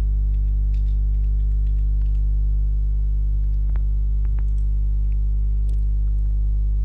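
Steady electrical hum with a low buzz, the same pitch throughout, under a few faint keyboard and mouse clicks as a search is typed and a result is clicked.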